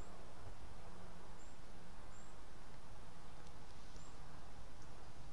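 Outdoor woodland ambience: a steady low rumble with faint, short, high bird chirps every second or so.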